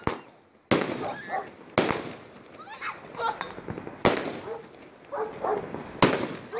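Consumer aerial fireworks shots bursting overhead: five sharp bangs at uneven intervals, one right at the start and the others about a second, two seconds, four seconds and six seconds in, each dying away quickly.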